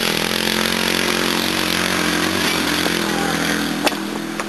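Small 10 hp go-kart engine revving up and holding at steady high revs. Two sharp knocks come near the end.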